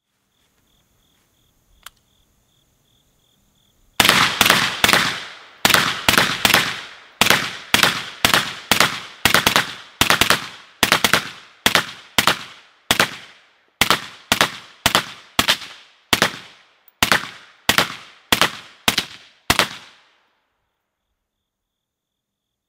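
An AR-15-style rifle fired rapidly in semi-automatic, about thirty sharp shots at roughly two a second, each with a short echoing tail. The firing starts about four seconds in and stops a few seconds before the end.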